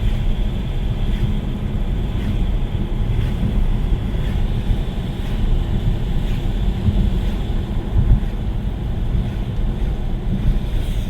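Steady low road and tyre rumble heard inside an electric car's cabin on a rain-soaked road, with faint ticks about once a second.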